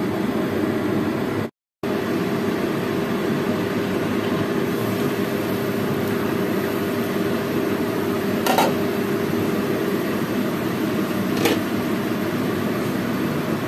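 A steady mechanical hum, broken by a brief gap near the start, with two short clicks about three seconds apart in the second half.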